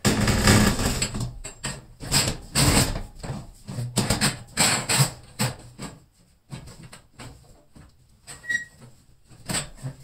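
A new garage door torsion spring being worked along the steel torsion tube: irregular metal clanks and scrapes, loudest and thickest over the first half, then sparser knocks.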